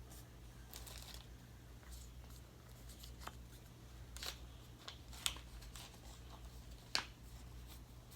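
Faint handling of Pokémon trading cards and their packaging: a few scattered light rustles and clicks, the sharpest about seven seconds in, over a steady low hum.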